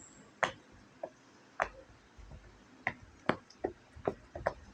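Bubbles of a silicone pop-it fidget toy being pressed one by one, each giving a short pop; about eight pops at irregular spacing.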